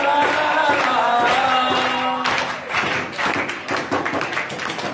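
A man singing an old Hindi film song through a microphone, holding long wavering notes, which ends a little over two seconds in; a room full of people then claps.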